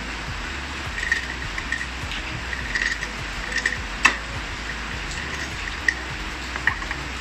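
Scattered light clicks and taps of hand tools against a scooter's rear end and engine cover, the sharpest about four seconds in, over a steady hiss.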